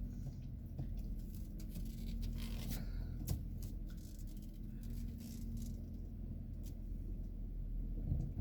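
A steady low hum, with scattered faint clicks and rustles.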